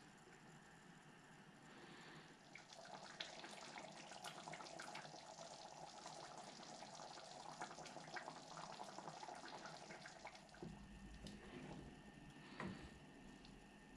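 Thick lentil curry simmering in an open steel pot on a gas burner, faint bubbling and popping as it cooks down towards creamy. Near the end a wooden spoon stirs through it with a dull knock.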